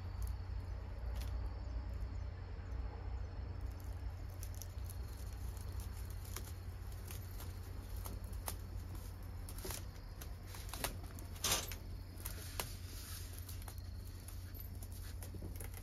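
Light rustles and scattered clicks of a cat moving against a hanging bamboo blind and stepping over a rolled bamboo mat, the sharpest click about eleven seconds in, over a steady low rumble.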